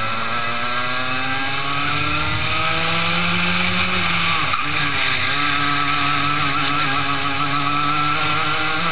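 Two-stroke racing kart engine at full throttle, its pitch climbing steadily for about four seconds as the kart accelerates. It dips briefly about four and a half seconds in, then climbs again more slowly, over wind and tyre noise.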